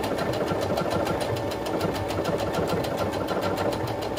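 Baby Lock Lyric computerized sewing machine stitching at a steady, fast, even rhythm of needle strokes. It is running cleanly with the bobbin reseated, and the stitches are forming properly.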